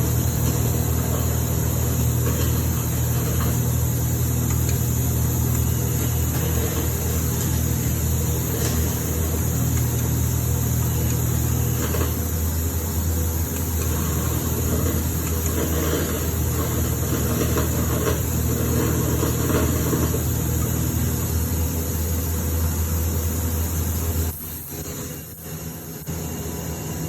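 Electric arc from a TIG welder burning in a graphite crucible furnace: a steady low electrical hum with crackling arc noise over it. About 24 seconds in the hum cuts out and a quieter hiss is left.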